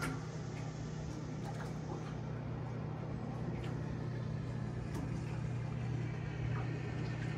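Electric boat-lift motor and winch running with a steady low hum as it moves a ski boat on its cradle.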